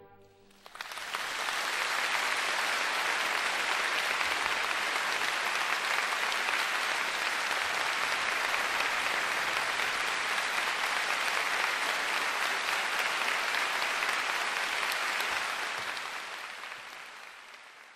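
Concert audience applauding a live orchestral performance: the applause breaks out about a second in, holds steady, and fades away near the end.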